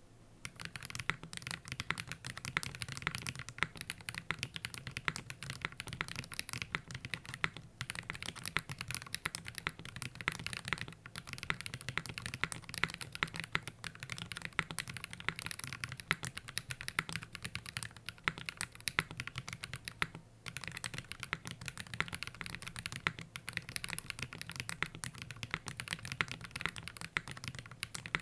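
Fast continuous typing on a QK60 mechanical keyboard with stock Gateron Cream Soda switches on an aluminium plate, with no foam inside the case and GMK keycaps. Rapid overlapping key clacks, with brief pauses about 8, 11 and 20 seconds in.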